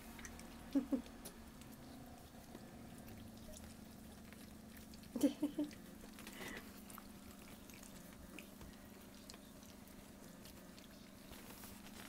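Bullmastiff puppies squeaking: two short squeaks about a second in and a quick run of three around five seconds in, over a steady low hum and faint pattering.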